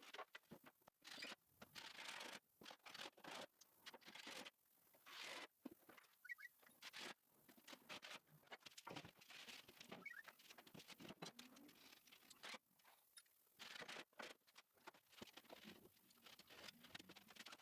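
Faint, irregular light knocks, taps and rustles, like things being handled and moved about.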